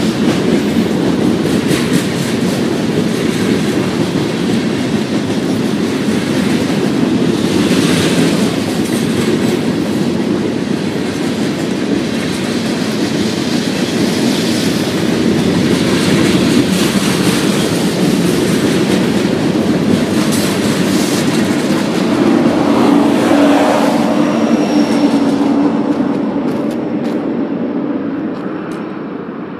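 Freight train's covered hoppers and boxcars rolling past close by, a steady rumble and clatter of steel wheels on the rails, fading away near the end as the last car goes by.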